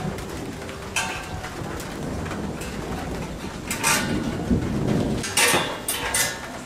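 Steel motorcycle frame hanging by wire from a steel-pipe rack being handled: light metallic clinks and knocks with rustling, the sharpest cluster of knocks about five and a half to six seconds in.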